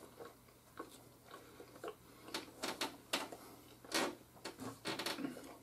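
Baked pizza rolls, hard and dry, being chewed: faint, irregular crunches and mouth clicks, a few louder ones about four seconds in.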